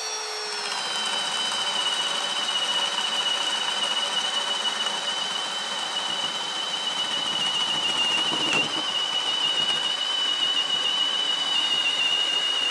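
Milwaukee cordless hammer drill in drill mode on low speed, boring a spade bit into a thick wooden beam: a steady motor and gearbox whine under load, its pitch sagging a little as the bit bites at the start, with one brief hitch about eight and a half seconds in.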